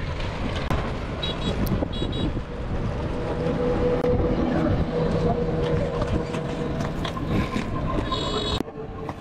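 Outdoor road noise with wind on the microphone: a passing motor hums steadily through the middle. Short high horn toots come twice in the first couple of seconds and once near the end, and the sound drops out briefly just before the end.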